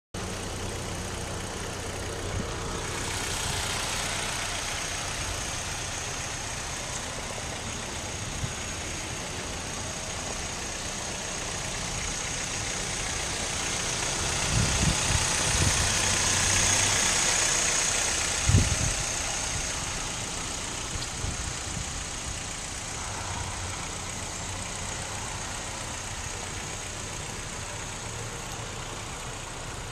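2008 Hyundai Sonata's four-cylinder engine idling steadily, with a few low thumps near the middle.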